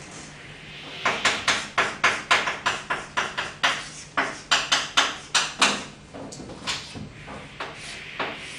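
Chalk tapping and scraping on a blackboard as characters are written: a quick run of short, sharp strokes for about five seconds, then fewer and fainter ones near the end.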